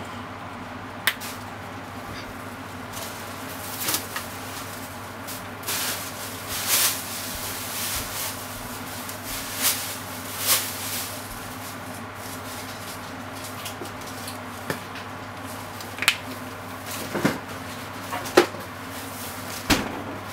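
Carbonara cream sauce simmering in a frying pan on a gas stove, with irregular soft pops and sputters over a steady low hum. A few sharp clicks come near the end.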